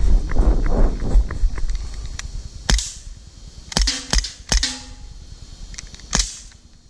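Pistol shots from a CO2 pellet air pistol, a Sig Sauer P226 Air: five sharp pops, irregularly spaced over the last four seconds. Two of them are followed by a brief ringing tone from a struck steel target. A rustling noise comes first, in the opening second or so.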